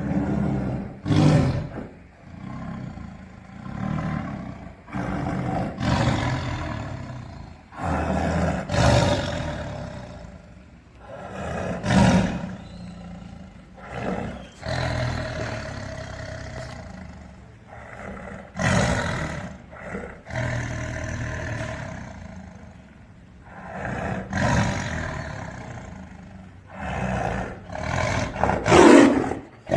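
A tiger roaring and growling over and over, one call every two to three seconds, the loudest near the end.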